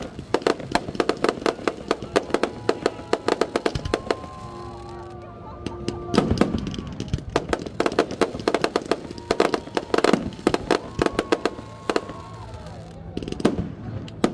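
Aerial fireworks going off in rapid strings of sharp bangs and crackles, thinning briefly about four seconds in before dense volleys resume.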